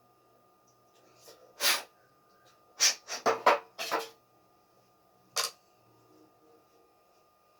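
Short noisy bursts from cleaning gas stove valve parts: one a little under two seconds in, a quick run of four or five between about three and four seconds, and a last one near five and a half seconds.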